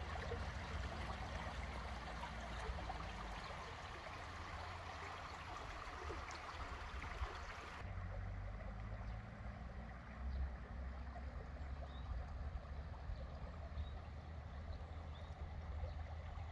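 Small stream trickling, with a low wind rumble on the microphone. The water sound cuts off suddenly about halfway through, leaving only the faint rumble.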